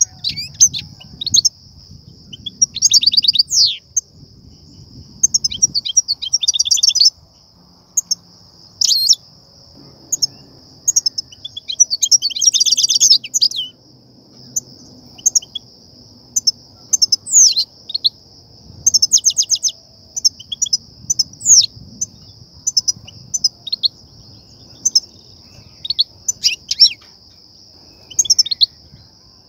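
European goldfinches calling and twittering in short bursts of fast, chattering trills a second or two apart, the longest lasting about two seconds. These are the excited 'betbeta' calls that keepers play to stir goldfinches into singing and that trappers use to lure them to nets.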